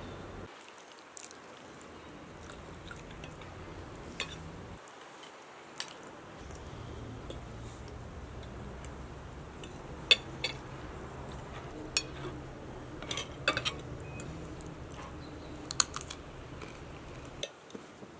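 People eating a meal: spoons and forks clicking sharply against plates now and then, the loudest click about ten seconds in, with chewing.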